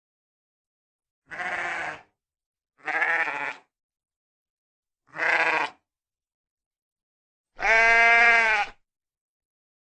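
Sheep bleating four times with silence between the calls; the last call, a little over a second long, is the longest and loudest.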